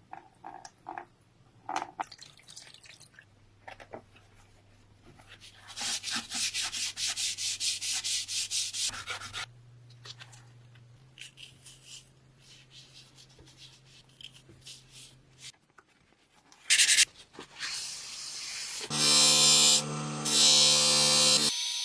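Quick, rhythmic hand-sanding strokes on the rusty bread cutter's parts, rubbing the rust off for a few seconds. Near the end a small electric power tool starts and runs at a steady pitch.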